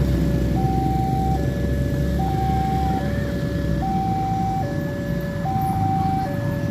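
Railway level crossing warning alarm sounding: an electronic two-tone signal alternating between a higher and a lower tone about every 0.8 seconds, the warning that a train is approaching. It plays over a steady low rumble.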